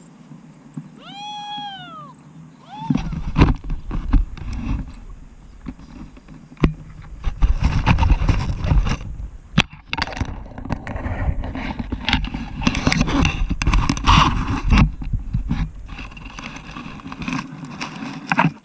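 Wind buffeting the microphone in loud, uneven gusts, starting about three seconds in. Just before it comes one short high call that rises and falls.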